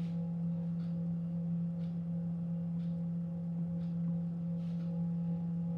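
A steady low hum: one held tone with fainter overtones, under faint soft ticks about once a second.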